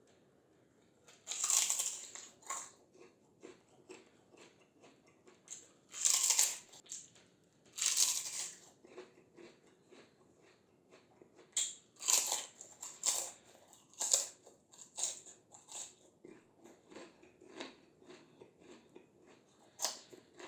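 Close-up biting and chewing of crispy fried Indian snacks (papad and kachri): several loud crackling crunches, with softer crunchy chewing and small cracks in between.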